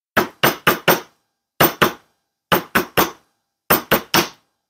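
A plastic-headed mallet tapping a copper wire bangle against a steel bench block, flattening the bangle. About a dozen light, sharp taps come in four quick groups of two to four, each with a short metallic ring.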